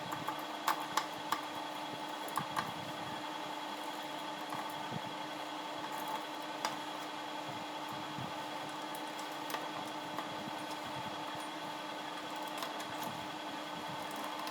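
Steady mechanical hum holding a fixed pitch, with a few light clicks and taps scattered through it.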